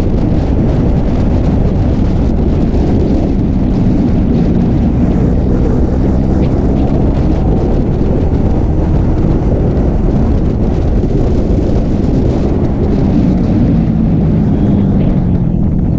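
Sport motorcycle riding at road speed: wind rushing over the microphone with the engine running steadily underneath. The engine note dips lower near the end.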